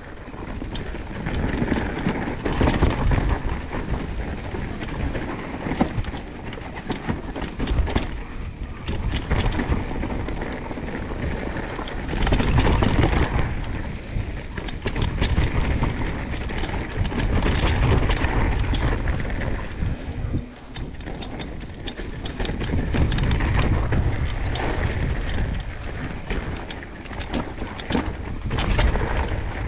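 Mountain bike descending a rough dirt trail: a constant rumble of tyres over dirt and rocks, with many sharp rattles and knocks from the bike over bumps.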